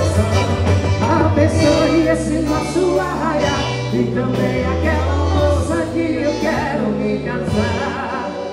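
Loud song with singing over a bass line and a steady drum beat.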